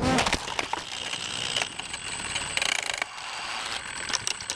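A drone crashing into a doorway: a sharp hit right at the start, then scattered clattering and rattling as it breaks up and tumbles to the ground.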